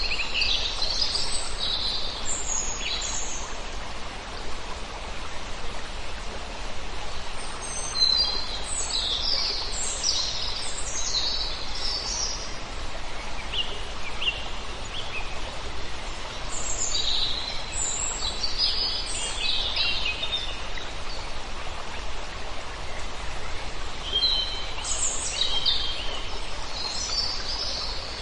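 Songbirds singing in several bursts of quick high chirps and trills over the steady rush of a stream.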